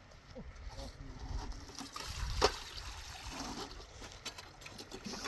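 Faint voices in the background, with one sharp knock about two and a half seconds in.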